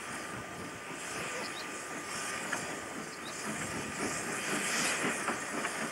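Small steam tank locomotive hauling a passenger train on the approach: steam hissing over a run of quick exhaust beats, growing louder as it draws near.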